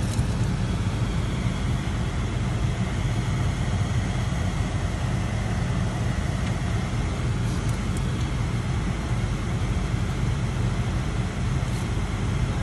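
Steady low rumble and hiss inside a car's cabin as the car idles and creeps forward in a queue.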